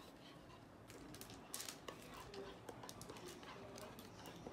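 Faint wet clicks and squelches of slime being stirred with a plastic spoon in a plastic bowl, thickest about a second and a half in, as the glue and activator thicken into slime.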